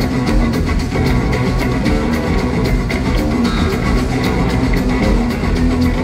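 Electric bass guitar soloing live over a drum kit that keeps a steady beat, its regular cymbal ticks running through, heard loud through an arena sound system.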